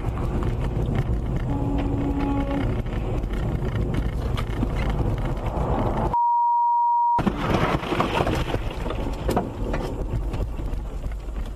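Steady rumble of a vehicle driving, broken about six seconds in by a one-second censor bleep, a single high steady beep that replaces all other sound.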